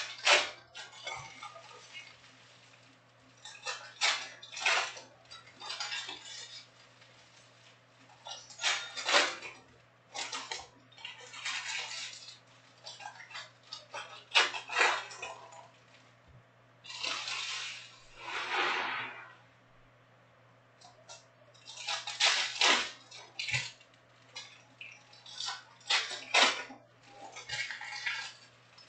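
Foil wrappers of Panini Prizm soccer card packs crinkling and tearing as packs are ripped open and cards are handled, in irregular bursts every few seconds.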